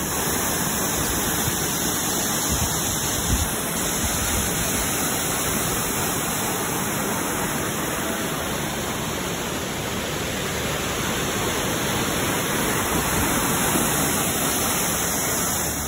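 Rushing water from a waterfall pouring and whitewater churning over rocks: a steady, even rush.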